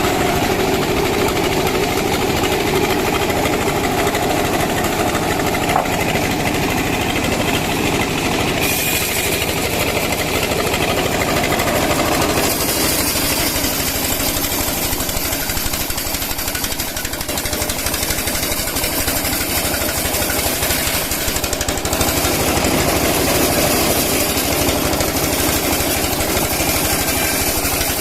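Sawmill wood-cutting machinery running loudly and steadily, its tone shifting brighter about twelve seconds in.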